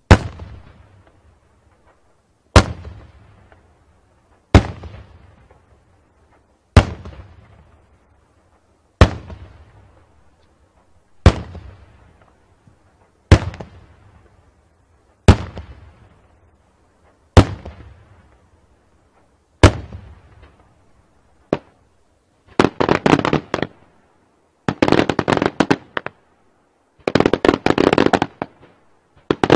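Daytime aerial fireworks shells going off: a run of about ten single loud bangs, roughly two seconds apart, each echoing away. From about two-thirds of the way through, the bangs give way to three or four dense volleys of many rapid small reports, each lasting a second or two.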